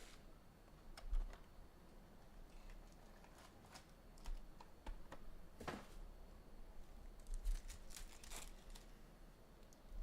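Scattered light clicks and taps with a few soft rustles, from hands handling things on a tabletop. There is a sharper click about halfway through and a quick flurry of clicks near the end.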